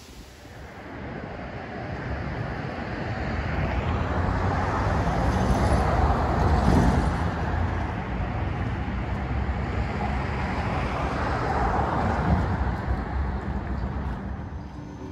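Street traffic: vehicles passing, their noise swelling and fading, loudest about six to seven seconds in and again around twelve seconds.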